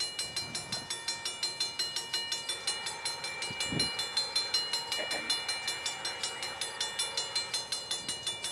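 Railroad grade-crossing warning bell ringing in a rapid, even rhythm, its signal activated by an approaching train.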